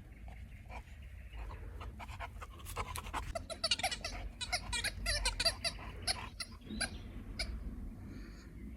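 Young boxer dog chewing a squeaky rubber ball: a rapid run of short squeaks and clicks, thickest in the middle.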